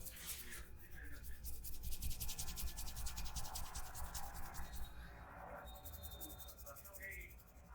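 Hands rubbing briskly back and forth over hair and skin during a massage: a fast, even run of rubbing strokes that slackens about five seconds in, then picks up briefly.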